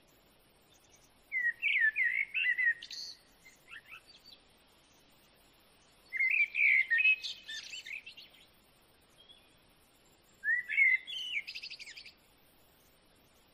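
A bird singing: three bursts of quick, twittering chirps, each a second or two long, about four seconds apart.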